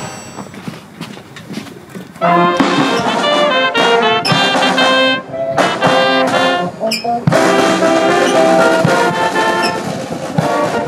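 Brass band playing, quieter for the first two seconds, then full sustained brass chords from about two seconds in.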